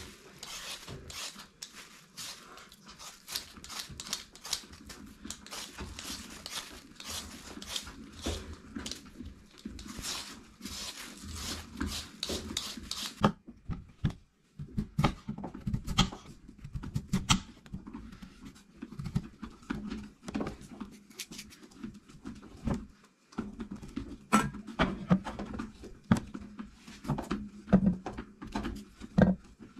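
Kitchen knife peeling raw potatoes: rapid scraping strokes for roughly the first half, then sparser knife cuts and knocks as the peeled potatoes are sliced.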